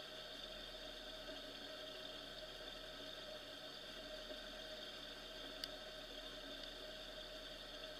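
Faint, steady engine hum with a single light click about five and a half seconds in.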